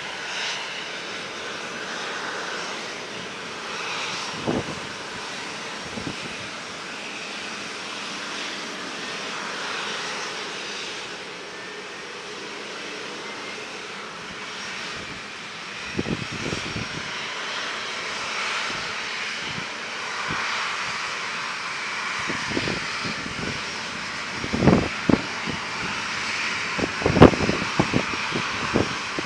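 Steady jet whine and hiss from a Boeing 737-800 on the apron as a tug pushes it back. A few short low thumps break in, most of them near the end.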